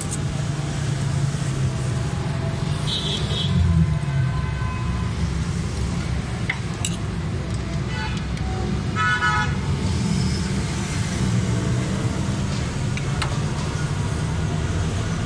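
Steady low rumble of road traffic, with a vehicle horn sounding once, briefly, about nine seconds in. A few sharp clicks are heard along with it.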